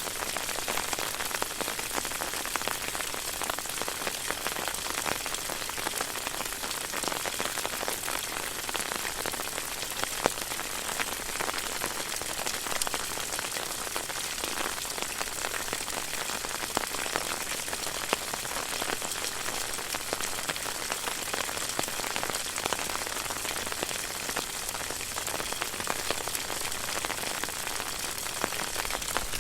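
Water fountain running steadily: falling water splashing into a pool, a continuous patter of drops.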